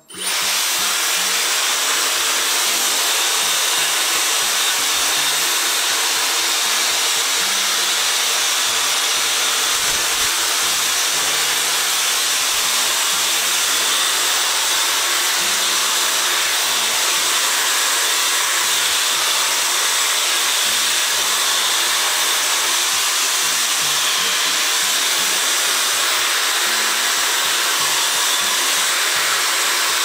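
Dyson Supersonic hair dryer switching on and then running steadily, a loud even rush of air, as it blow-dries hair.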